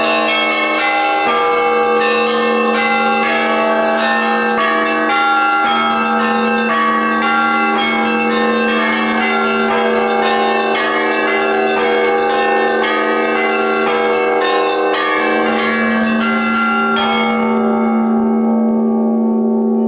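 Church bells ringing: quick repeated strokes on several bells over the long ringing tones of larger bells. Near the end the quick strokes stop and the bells ring on.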